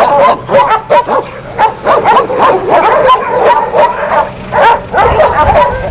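Many dogs barking, yipping and whining at once, a continuous din of overlapping yelps from dogs confined in a shelter.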